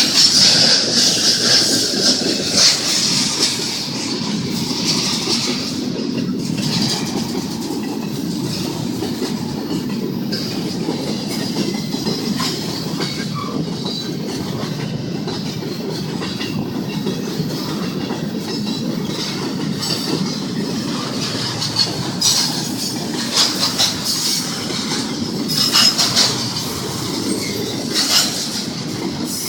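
Union Pacific intermodal freight train rolling past: a steady rumble of the cars with wheels clattering over the rail joints. The clatter is louder near the start and again in the last several seconds.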